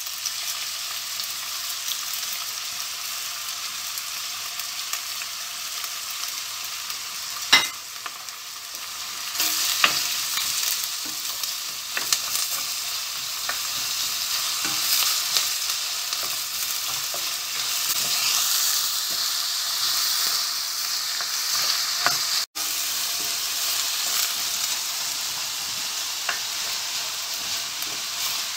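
Chopped onions and peppers sizzling in hot olive oil in a stainless steel pot, stirred with a wooden spoon that knocks against the pot now and then, loudest about seven and a half seconds in. The sound breaks off for an instant about two-thirds of the way through.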